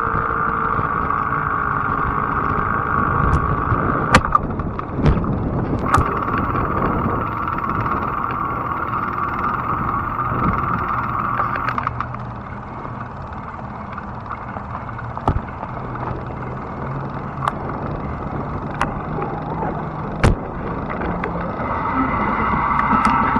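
Fat-tire electric bike being ridden on asphalt: a steady whir from the motor and tires over a low rumble, with scattered sharp knocks and clicks from bumps. The whir drops away about halfway through and comes back near the end.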